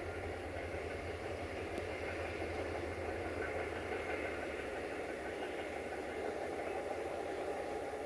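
Diesel locomotive engine running steadily with a low, even hum; no horn sounds.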